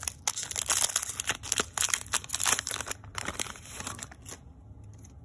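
Foil wrapper of a Pokémon card booster pack crinkling and tearing as it is ripped open by hand, a dense run of crackles that stops about four seconds in.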